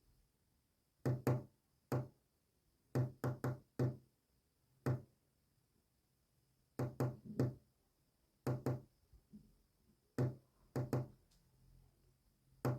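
Sharp knocks on a hard surface in short groups of one to three, about five a second within a group, separated by longer pauses: Morse code being tapped out by knocking.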